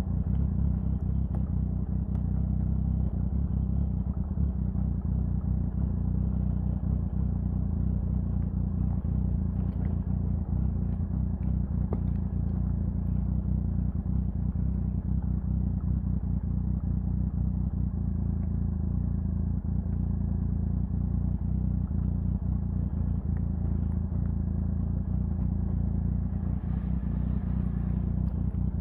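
Triumph Sprint 1050's three-cylinder engine running at a steady speed, its pitch and level holding even throughout.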